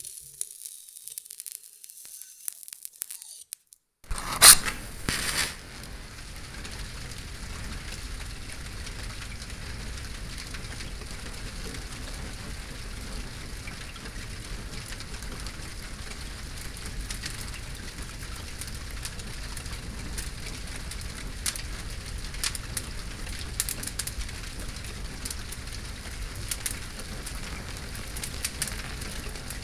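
A wooden match head catching fire with a sudden sharp flare about four seconds in, then burning with a steady hiss and scattered small crackles.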